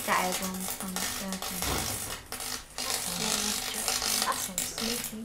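Pickled gherkin with mains voltage across it crackling and spitting as it arcs and burns at the electrode, with an electrical buzz that cuts in and out.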